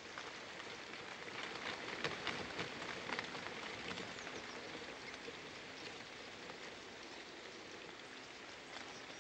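Steady rain falling, with individual drops ticking sharply on the leaves around the nest.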